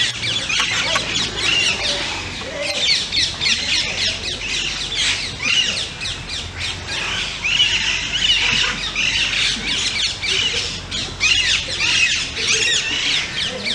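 Many birds calling at once: a dense, unbroken chorus of short, quick squawks and chirps.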